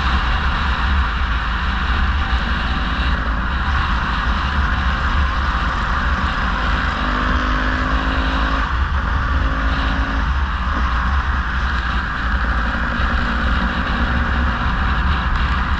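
A vehicle on the move: its engine running under steady, heavy road and wind noise, with a low rumble.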